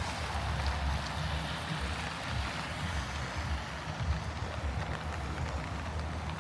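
Steady hiss of heavy rain on a city street, with a low rumble underneath from traffic or wind on the microphone.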